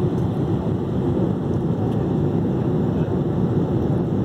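Steady low rush of cabin noise inside a Boeing 787-8 airliner cruising at high altitude, heard from a window seat beside the engine: even airflow and engine noise with no changes.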